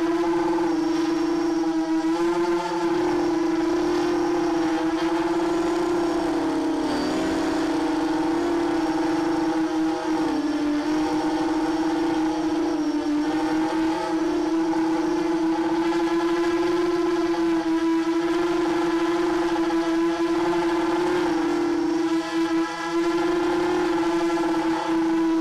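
The four Sunnysky 2207 2100kv brushless motors and propellers of a 250-size racing quadcopter whining steadily in flight, heard from on board. The pitch wavers with throttle and dips briefly about seven and ten seconds in.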